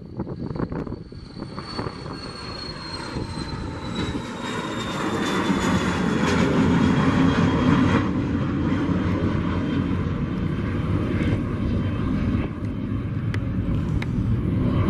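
Twin-engine business jet taking off and climbing out: steady jet engine roar that builds over the first several seconds and stays loud, with a high fan whine slowly falling in pitch as the aircraft passes.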